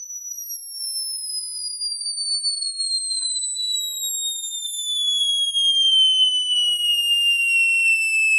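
A 555 timer oscillator driving a small speaker, its pitch sliding slowly and steadily down as a potentiometer is turned. It makes a high whistling tone like an old cartoon falling sound, growing louder as it drops.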